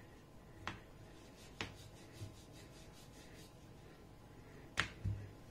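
Wooden rolling pin rolling out paratha dough on a board: faint rubbing, with a few light clicks of wood touching the board, the sharpest near the end.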